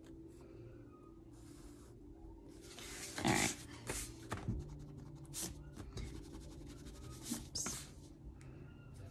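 Paper sliding and rustling as a worksheet is shifted across a sketchbook, then a run of short pencil strokes scratching on the paper. Faint squeaks from a neighbour's swing come and go underneath.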